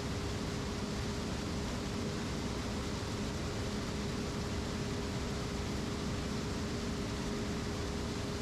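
New Holland CR 7.80 combine harvester running steadily while harvesting corn: an even mechanical rush with one steady whine held throughout.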